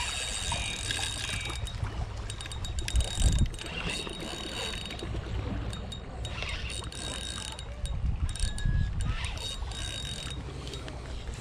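Spinning reel being cranked, its gears and drag ticking as a hooked fish pulls against the line. Wind rumbles on the microphone in gusts, loudest about three seconds in and again near the end.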